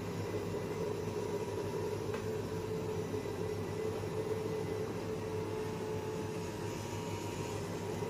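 Robot vacuum cleaner running: a steady motor hum with a constant mid-pitched whine.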